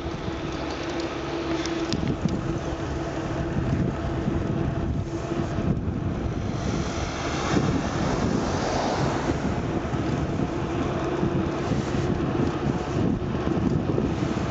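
Wind buffeting the microphone of a camera riding on a moving bicycle, with a steady low hum underneath.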